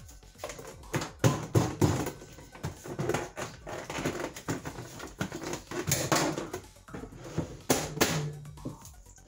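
A plastic lid pressed and snapped onto a bowl of pudding batter in a stainless steel sink: irregular clicks, knocks and rattles as the bowl and lid are handled.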